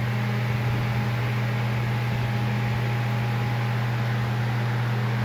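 A fan running steadily: a constant low hum with an even rush of air.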